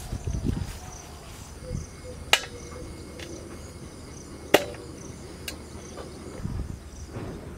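Two sharp knocks about two seconds apart as raw goat legs are set down in a stainless steel bowl, with a couple of fainter ticks after them. Crickets chirp steadily throughout, and there is a low rustle of footsteps in grass at the start.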